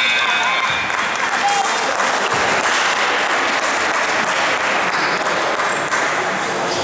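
Crowd in a school gymnasium applauding and cheering as the clock runs out at the end of the second period. The tail of the scoreboard buzzer dies away in the first half second.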